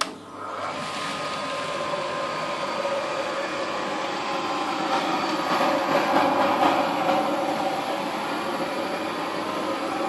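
Homemade cyclone dust collector's electric blower switching on with a click and spinning up over about a second, then running steadily with a rush of air and a faint whine.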